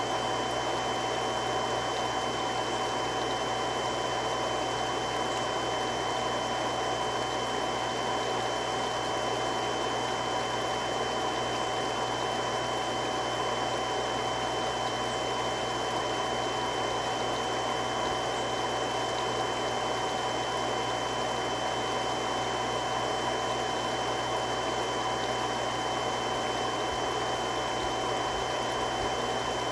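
Three-stage irrigation water pump running steadily: a constant rushing noise with a few steady whining tones over it.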